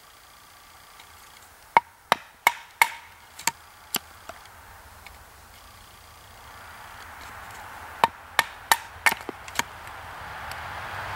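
Large knife chopping down into a small stick of kindling on a wooden stump, splitting it: two quick runs of sharp wooden chops, about half a dozen each, a few seconds apart.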